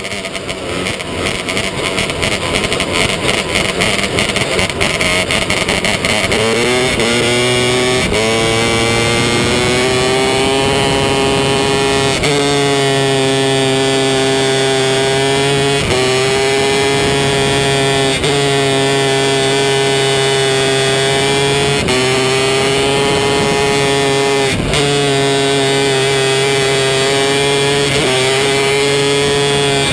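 270-class micro sprint car's single-cylinder motorcycle engine, heard from the onboard camera: revs build over the first several seconds, then it runs at high, steady revs at racing speed, with brief dips in pitch every few seconds as the throttle eases for the turns.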